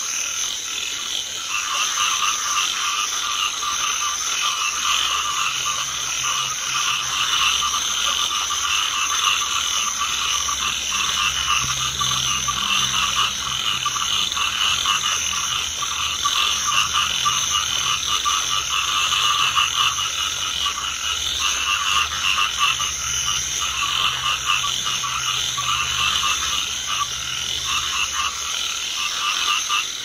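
A dense chorus of rice field frogs calling for mates, many overlapping rapid croaks running together into one continuous din.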